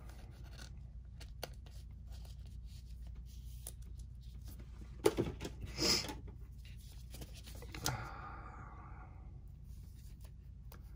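Trading cards being handled and slid about: a few soft clicks and rustles, loudest as a sharp click and rustle about halfway through and a scraping slide a couple of seconds later, over a steady low hum.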